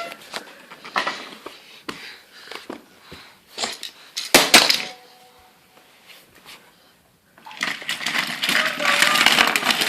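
Small die-cast and plastic toy trains clicking and clattering against each other and their track as a child handles them, with a loud cluster of knocks about halfway through and a child's voice near the end.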